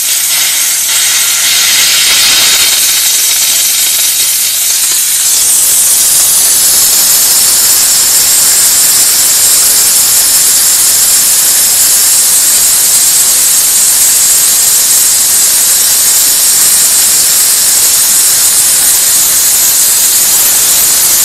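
Steady, loud hiss of steam jetting from the two spray guns of an electric steam car washer. A low hum runs underneath for the first five seconds, then stops, and the hiss grows stronger at about the same moment.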